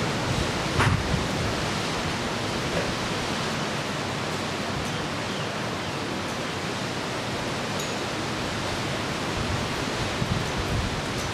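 A steady, even rushing noise with no pitch, with a couple of brief low bumps about a second in and again near the end.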